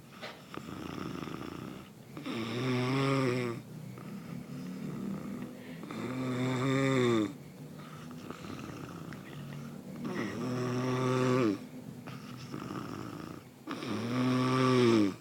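A sleeping person snoring loudly: four long, droning snores about four seconds apart, with quieter breathing between them.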